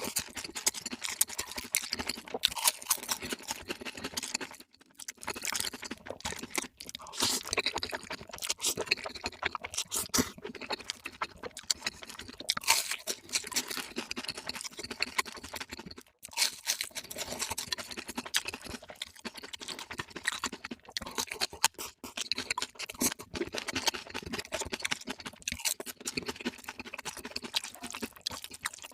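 Sped-up eating sounds: a dense, rapid stream of chewing and crunching, with short breaks about five and sixteen seconds in.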